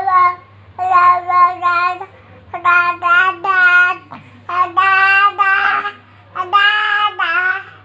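A baby vocalising in four long, steady-pitched, sing-song calls with short pauses between them.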